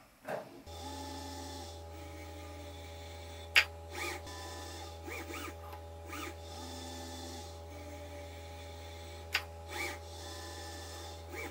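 Dobot Nova 2 robot arm with a DH Robotics PGC-50-35 electric gripper running a pick-and-place cycle. A steady motor hum runs with short whirring glides as the joints move, and there are two sharp clicks about six seconds apart.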